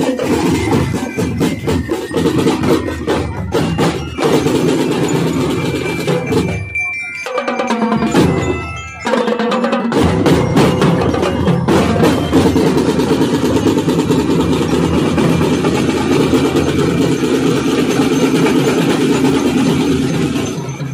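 Drum and lyre corps playing in full: snare, tenor and bass drums beating out a dense, rapid pattern, with bell-lyre notes ringing over it. The drumming thins out briefly about seven to nine seconds in, then comes back full.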